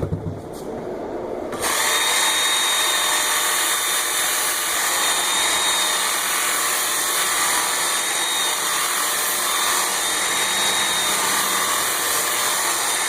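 Work Sharp Ken Onion Edition belt sharpener running with an axe edge held against its fine polishing belt. It starts abruptly about a second and a half in and then runs steadily as a dense grinding hiss with a thin high whine over it.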